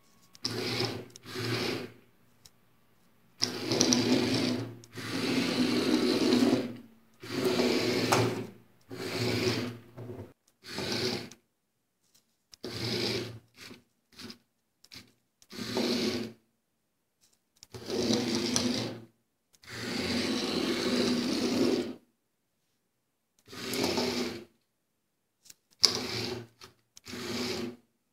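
Small DC gear motors of a two-wheel Arduino robot car whirring in many separate bursts, some a fraction of a second and the longest about three seconds, with silent gaps between as the car starts and stops.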